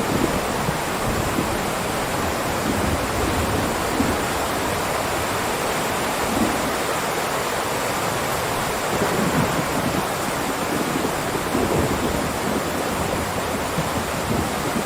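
Heavy rain downpour: a steady, dense hiss of falling rain with an uneven low rumble underneath.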